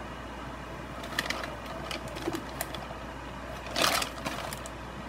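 Kitchen handling sounds at the stove: a few light clicks and knocks, then a brief louder rustle about four seconds in as a hand reaches over the saucepan and moves things beside it, over a steady background hum.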